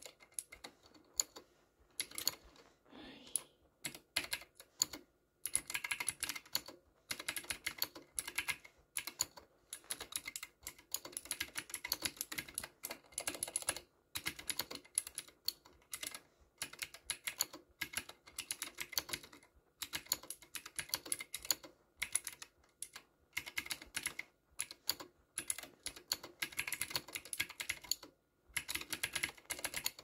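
Typing on a Drop + OLKB Planck V6 ortholinear mechanical keyboard fitted with clicky Gateron Blue switches. Rapid runs of sharp key clicks, broken every few seconds by brief pauses.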